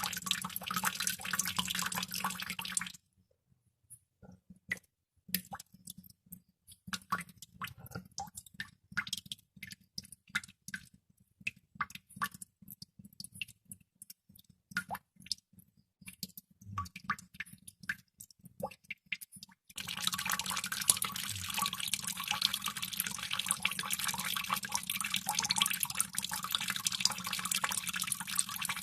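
Water droplets dripping: a dense, continuous patter of drops for the first three seconds, then single drops falling one by one at irregular intervals, until the dense patter returns about twenty seconds in.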